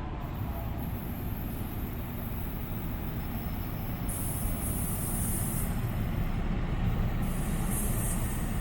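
An NJ Transit commuter train approaching, a rumbling noise growing steadily louder with no horn sounding.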